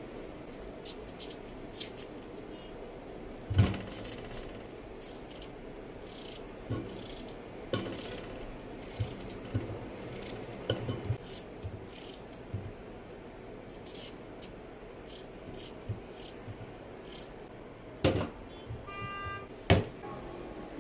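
Kitchen handling sounds: scattered light clicks and knocks of utensils and dishes over a steady low background hum, with a brief high-pitched tone near the end.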